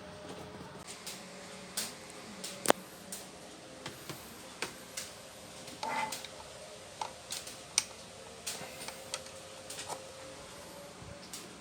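Scattered light clicks and taps at irregular intervals over a faint steady hum.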